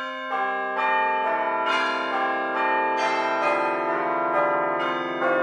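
Bells struck one after another, a new strike every second or so, each tone ringing on and overlapping the next.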